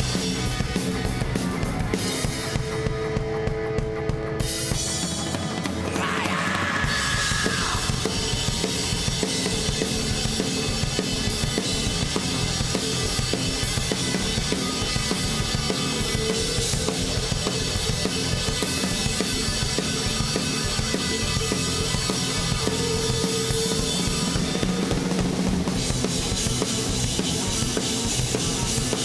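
Live rock band playing an instrumental passage: a DW drum kit keeps a steady beat with bass drum, snare and cymbals under electric guitar and bass guitar. The sound gets fuller about six seconds in.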